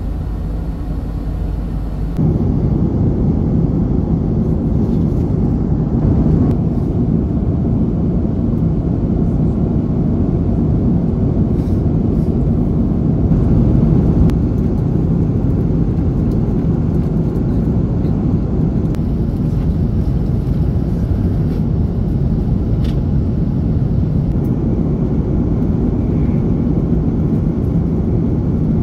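Steady low roar of airliner cabin noise aboard an Airbus A330, with engine and air noise, stepping up in level about two seconds in and then holding even.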